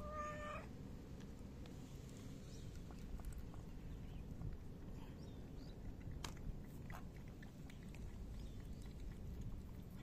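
A cat gives one short meow at the very start, rising slightly in pitch. After that there is only a steady low rumble with a few faint clicks.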